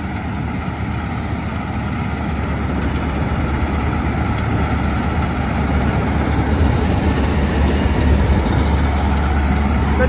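Preet 987 combine harvester running while harvesting soybeans: a steady engine and machinery drone that grows gradually louder as the machine comes closer.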